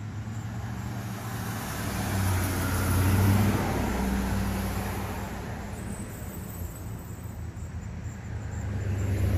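Road traffic with cars passing over a steady low engine hum: one swells and fades about three seconds in, and another builds near the end.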